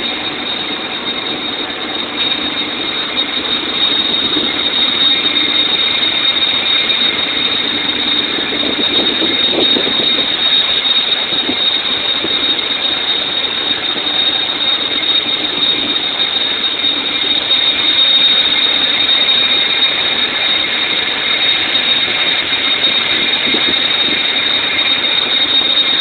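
Offshore platform machinery running: a loud, steady noise with a constant high whine over it.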